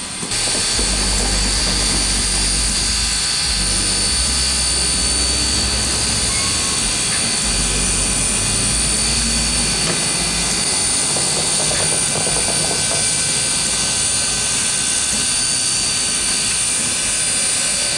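Baldwin 2-8-0 steam locomotive standing with a loud, steady hiss of venting steam. A low rumble comes and goes every few seconds underneath.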